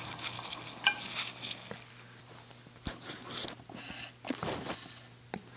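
Water at the boil in a titanium kettle, its hissing bubbling fading over the first couple of seconds as the kettle is lifted off the alcohol stove. A few light clicks and knocks as the kettle is handled.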